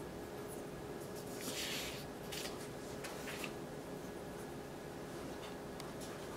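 Quiet room tone: a steady faint hiss and hum, with a soft brief rustle about a second and a half in and a few faint ticks.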